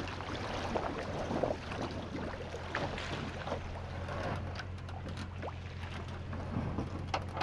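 Pickup truck engine idling with a steady low hum, with water sloshing and scattered knocks and clunks as the aluminium jon boat floats off its trailer.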